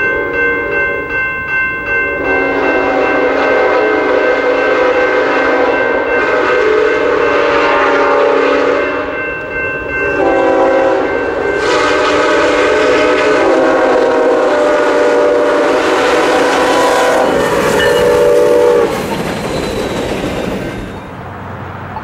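A grade-crossing bell dings steadily, then an approaching locomotive's multi-chime air horn blows long blasts with a short break between them. The horn stops a few seconds before the end, leaving the rumble and wheel noise of the passing train.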